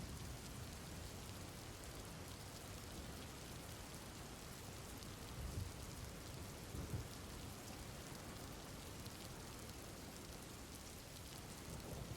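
Steady rain falling, an even hiss of drops on a surface, with two brief low rumbles of distant thunder near the middle.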